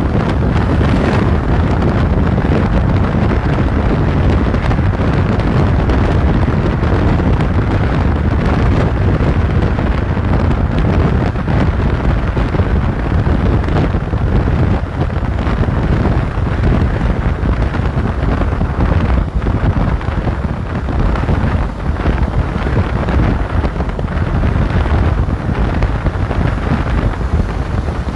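Steady wind rumble buffeting the microphone of a camera riding on a moving motorcycle at speed, with the motorcycle's running and road noise beneath it.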